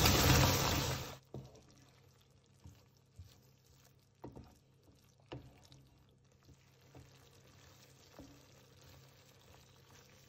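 Loud sizzling hiss from the pan that cuts off suddenly about a second in, followed by faint, scattered knocks of a wooden spoon stirring thick okra curry in the pan.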